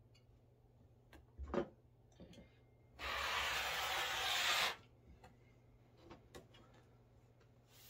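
Rotary cutter pushed along a ruler, slicing through the layers of a quilt in one steady pass of under two seconds, about three seconds in. A light knock comes shortly before it.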